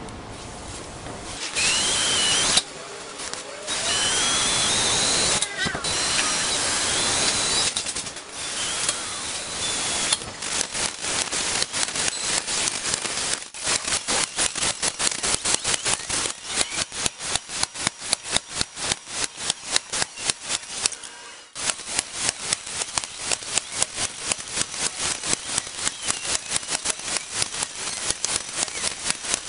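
Cordless impact driver running #2 Phillips self-drilling screws into 2.3 mm C-section steel. A high whine with wavering pitch fills the first several seconds, then the rapid hammering of the impact mechanism repeats screw after screw, with a brief pause a little past two-thirds of the way through.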